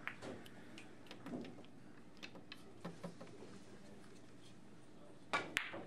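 Carom billiard balls clicking against each other and knocking off the cushions as a three-cushion shot plays out: a scatter of sharp clicks, the two loudest close together near the end.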